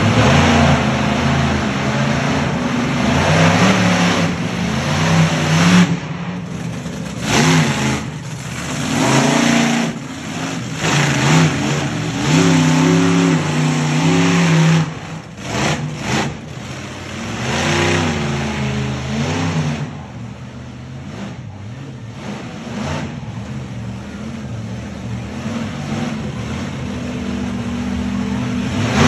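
Monster truck engine revving hard again and again, its pitch climbing and falling with each burst of throttle. About two-thirds through it settles into quieter, steadier running.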